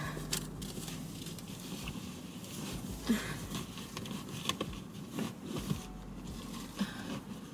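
Soft rustling and light scattered knocks as a quilted fabric car seat cover is pulled over the seat and tucked in behind it.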